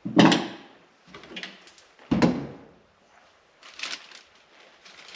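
Handling knocks and clunks from parts and tools being worked loose while a car's dashboard is dismantled: a few separate knocks, with a loud one right at the start and the sharpest about two seconds in.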